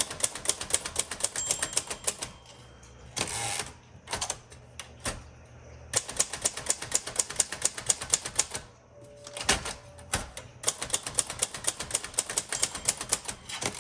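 1957 Royal Quiet Deluxe manual typewriter being typed on fast, keys clacking in three quick runs with short pauses and a few single strokes between them.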